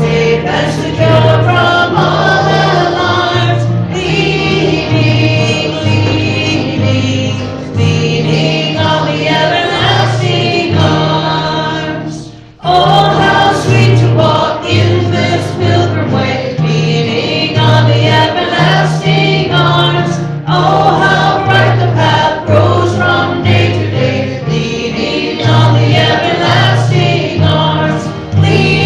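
Christian worship song sung by a choir over instrumental accompaniment with a bass line stepping between low notes. The music cuts out briefly about twelve seconds in, then comes straight back.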